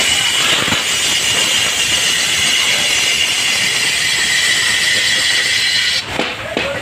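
Hand-held cutting tool shaving the inside of an aluminium wok spinning on a lathe: a steady, high-pitched scraping hiss that stops about six seconds in.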